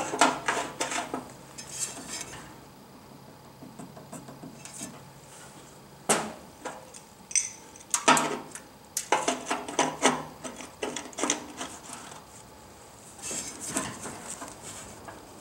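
Clicks, taps and light metallic clatter from hands working at a kerosene bullet heater's fuel-line fitting and sheet-metal housing as the trimmed rubber fuel hose is refitted. The sounds come in several short flurries with quiet gaps between them, and there is a brief squeak about seven seconds in.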